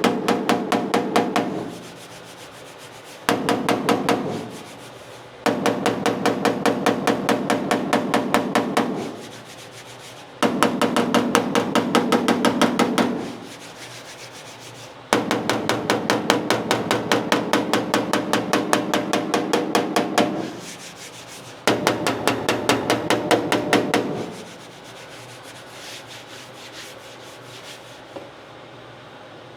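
Hand bodywork on a steel car fender: six bouts of quick, evenly spaced strokes, about three a second, each bout a few seconds long with short pauses between. It stops about three-quarters of the way through. This is the work of finding high spots and bringing them down.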